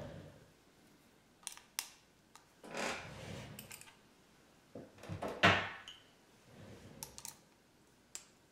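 Small parts and tools being handled while a handlebar switch is fitted: scattered sharp clicks and two short rattling scrapes, the louder one a little past halfway.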